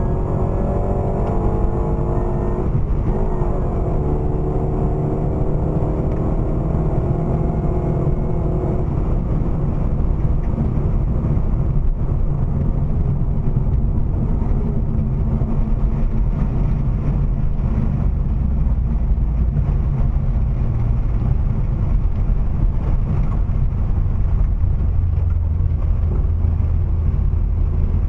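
HSV V8 heard from inside the cabin at full throttle. The engine note climbs, dips once with an upshift about three seconds in, then climbs again until about nine seconds in. There the engine note drops away and a steady low drone of road and wind noise remains as the car slows from top speed.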